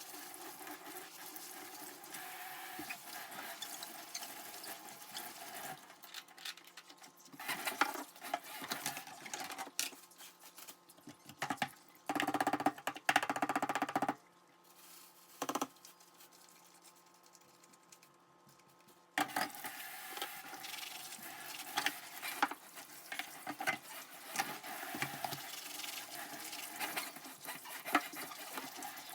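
Dishes being washed by hand at a sink: running tap water with dishes and utensils clinking and scraping. A louder, dense rush comes about twelve seconds in, then a quieter lull of a few seconds before the water and clatter pick up again.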